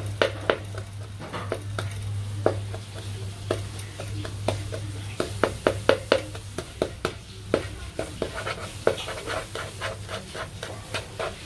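Wooden spatula tapping and scraping on a non-stick pan in many quick, irregular strokes as it mashes a chicken stock cube among stir-frying chicken pieces, which sizzle faintly. A steady low hum runs underneath.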